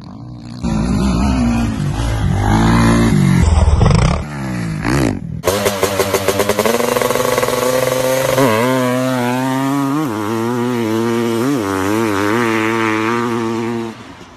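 Dirt bike engines. First one revs in bursts. After a sharp change about five seconds in, another revs hard and pulls away, its pitch rising and falling with throttle and gear changes, then drops off in level near the end.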